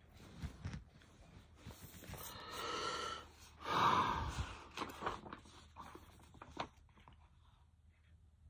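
A person's heavy breath close to the microphone, a long breath in and then a louder breath out about four seconds in, with scattered small knocks and rustles of things being handled.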